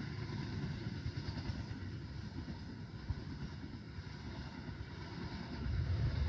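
Passenger train carriages rolling past on the rails: a steady low rumble of wheels on track with a few light clacks, growing louder near the end as the carriages pass close.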